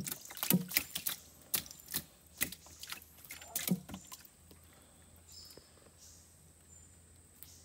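Gill net being hauled in over the side of a wooden boat and a meshed fish worked free: a run of sharp, irregular knocks and taps for about the first four seconds, then much quieter.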